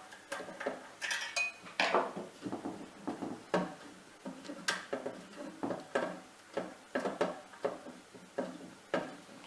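Tool and screw hardware clinking against the metal case of a charge controller while an earth wire is undone: a string of irregular, light metallic clicks and knocks.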